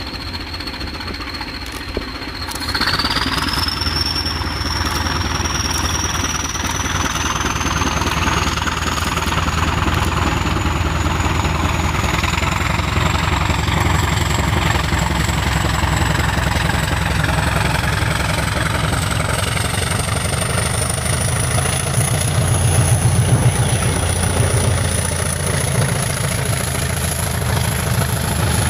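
English Electric Class 20 diesel locomotive working hard as it hauls a passenger train. Its engine gives a low rumble under a high turbocharger whistle that climbs steadily in pitch from about three seconds in, when the sound also gets louder. The coaches' wheels run past behind it.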